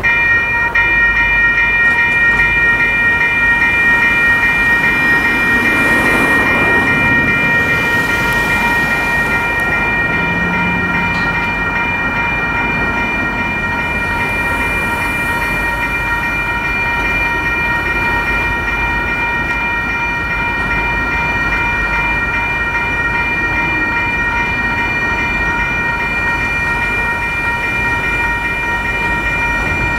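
Railroad crossing warning bells start ringing as the crossing signals activate, a steady repeating ring struck over and over.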